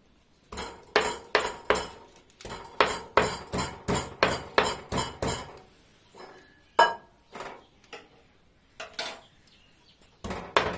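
Fresh ginger being pounded with a pestle in a mortar: a fast run of sharp clinking strikes, about three a second, then a few slower strikes, then a quicker run again near the end.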